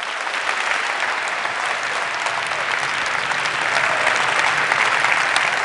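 Large auditorium audience applauding at the close of a talk: dense, sustained clapping that swells a little about four seconds in.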